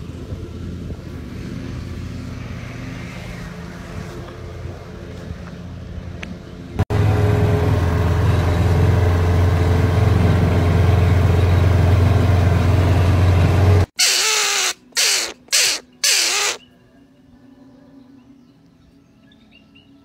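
A common myna giving four loud, harsh squawks in quick succession, after several seconds of a steady low rumble.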